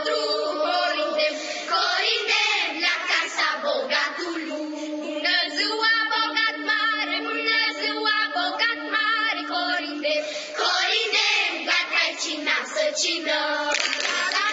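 Children's choir singing, with hand claps joining near the end.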